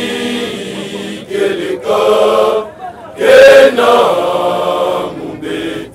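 Men's voices chanting a hymn in short phrases with brief breaks between them; the loudest phrase comes a little past halfway through.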